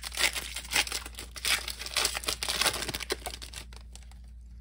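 Foil booster-pack wrapper of a Pokémon card pack crinkling and tearing as it is ripped open by hand. The crackling dies away a little after three seconds in.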